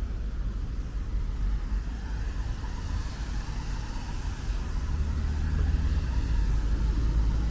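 Road traffic: a motor vehicle's low engine rumble over steady road noise, growing louder from about five seconds in as it comes closer.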